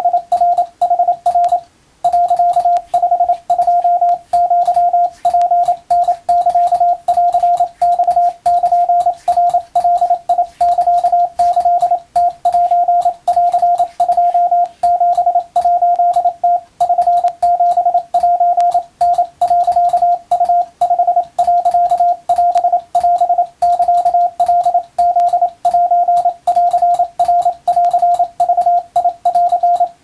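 Japanese wabun Morse code sent by hand on a straight key, heard as a keyed sidetone of about 700 Hz in a fast, irregular run of short and long beeps with a click at each stroke. The sending is a Japanese-language telegram, with one short pause about two seconds in.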